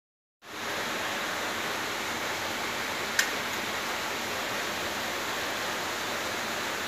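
Steady, even hiss from a Polytron CRT television's sound, with one short click about three seconds in.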